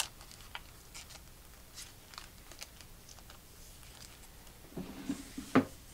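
Trading cards being handled and sorted, with light scattered clicks and rustles of card stock and wrapper, and one sharp snap near the end.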